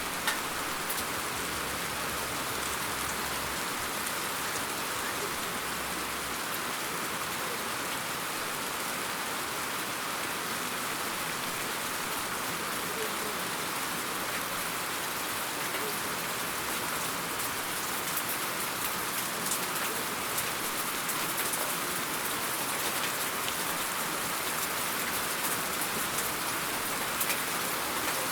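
Steady rain falling on a surface, an even hiss of many drops with scattered drip clicks that become a little more frequent in the second half.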